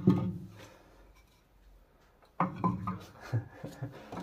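Split firewood being pushed into a metal banya stove's firebox, the logs knocking and scraping against each other and the opening. A sharp knock comes at the start, then after a quiet spell a run of knocks and scraping near the end.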